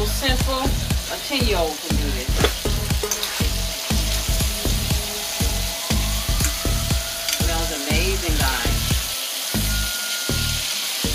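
Bacon sizzling and frying in a non-stick frying pan as a fork stirs it through the fat. A steady low beat runs underneath.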